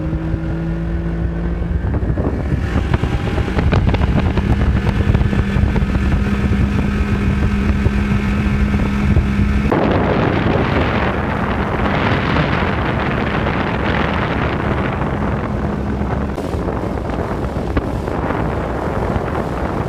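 Boat motor running under way, its pitch stepping up about two seconds in, with wind buffeting the microphone. From about halfway through, a loud rush of wind and water covers the motor.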